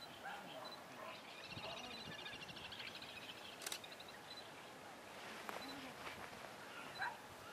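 Faint bird calls: scattered short high chirps, with a rapid trill lasting about a second and a half near the start. One sharp click comes about halfway through.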